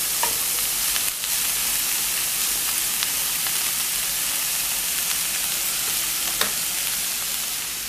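Shredded cabbage and onion sizzling steadily in hot oil in a frying pan over a high gas flame, with a few clicks of a plastic slotted spatula as it is turned and stirred.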